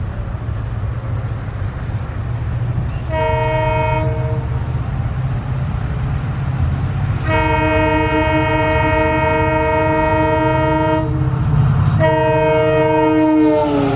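Indian diesel locomotive sounding its horn three times over a steady low engine rumble: a short blast, a long blast of about four seconds, then a third whose pitch drops at the very end as the train passes.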